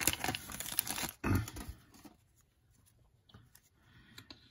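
Foil trading-card pack wrapper crinkling and tearing as it is pulled open, for about the first second and a half. After that it is mostly quiet, with a few faint taps as the cards are handled.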